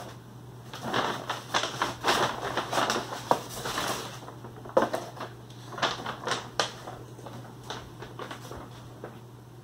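Paper takeout bag rustling and crinkling as cardboard food boxes are lifted out of it, with a few sharp knocks as the boxes are handled and set down.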